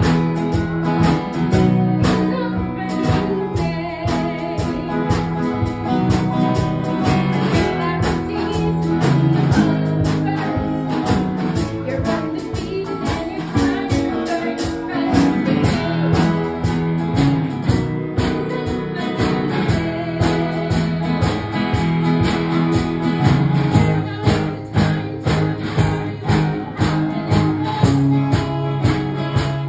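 A woman singing a song into a microphone over strummed acoustic guitar accompaniment.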